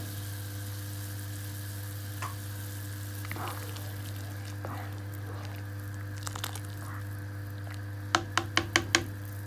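Pot of chicken soup boiling, with a ladle stirring through it over a steady low hum. Near the end come five quick sharp clicks in about a second.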